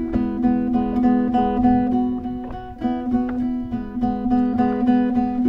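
Background music: acoustic guitar picked and strummed in a steady rhythm over a held bass note.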